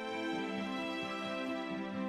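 Slow, soft background music with long held notes.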